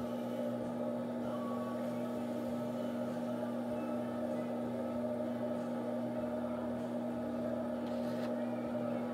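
Electric potter's wheel motor running at a steady speed with a constant hum while a vase is thrown, plus faint sounds of wet clay being worked.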